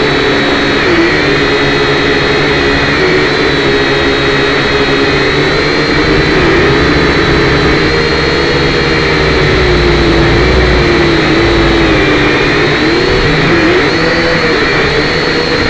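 Syma X5C quadcopter's four small motors and propellers whining loudly, heard from its onboard camera, with several pitches that waver up and down independently as the motors change speed to hold a low hover.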